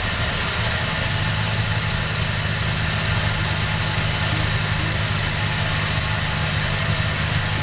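Suzuki Jimny engine running steadily at low revs, close to idle.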